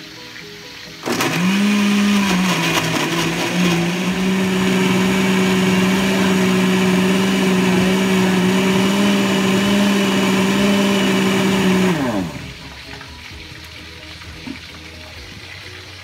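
Countertop blender switching on about a second in, its motor rising briefly in pitch and then running with a steady hum for about eleven seconds as it purées rocoto, cheese, soda crackers and evaporated milk into a thick sauce. It then switches off and winds down.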